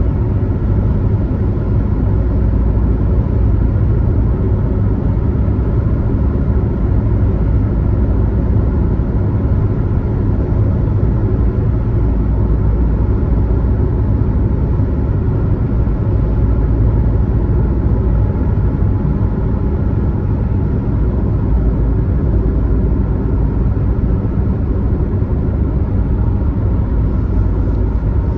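Steady low rumble of a car driving at highway speed: engine and tyre noise that holds even throughout.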